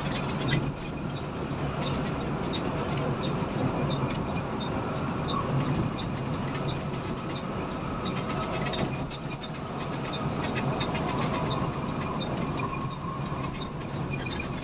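Cabin noise of an intercity coach cruising at highway speed: a steady engine drone and road rumble, with a light regular tick about one and a half times a second.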